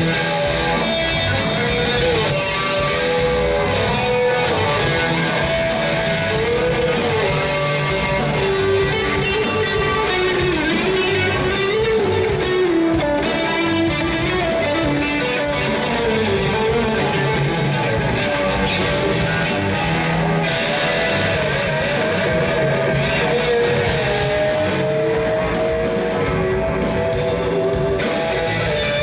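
Rock music led by a guitar, with a bending, wavering melody line over a steady backing.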